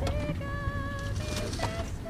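Background music: held pitched notes over a steady low bass, with sharp percussive hits.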